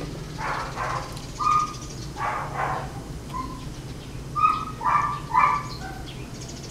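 A string of short animal calls, several close together, with the loudest about two thirds of the way in, over a steady low hum.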